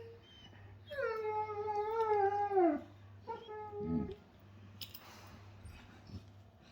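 German Shepherd dog vocalizing in play: one long, high whining howl of about two seconds that drops in pitch at its end, then a shorter, lower whine about three seconds in.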